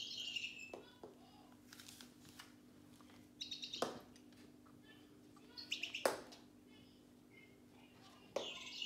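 Electronic bird chirping from a pink CatDribBall interactive toy ball, coming in short bursts of rapid high chirps as the ball is batted about: one at the start, one around four seconds in, one around six seconds in and another near the end. Two sharp knocks of the ball on the wooden floor come with the middle bursts.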